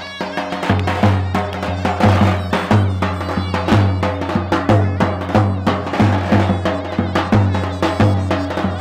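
Background music with a steady percussive beat over a pulsing bass line.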